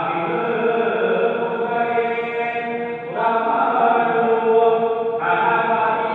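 Hindu ritual mantra chanting in long held notes, the pitch shifting about three seconds in and again about five seconds in.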